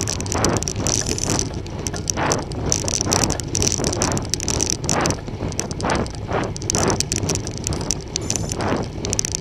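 Bicycle rolling along a road: steady tyre noise, with wind rushing over the microphone in uneven gusts.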